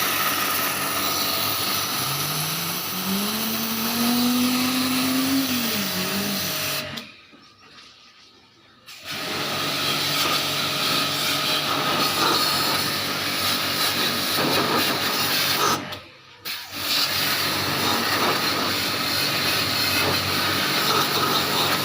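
Steady hiss of a water spray jet washing the air conditioner. It cuts out for about two seconds around seven seconds in, and again briefly around sixteen seconds in.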